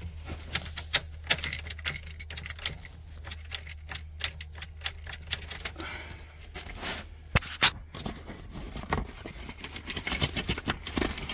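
Irregular clicking and clattering of hard objects being handled, with two louder clacks about two thirds of the way through, over a steady low hum.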